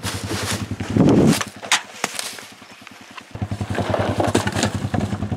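Pickup truck engine idling with an even low pulse, louder from about three seconds in, while plastic garbage bags rustle and a heavy thump lands about a second in as trash is unloaded from the truck bed.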